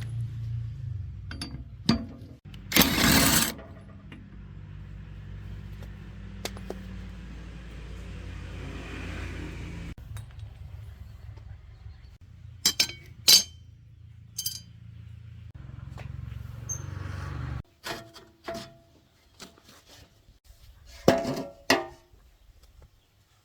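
Metal parts and tools clinking and knocking now and then, with a louder clatter about three seconds in and clusters of sharp clinks later on, over a low steady hum that cuts off suddenly about three quarters of the way through.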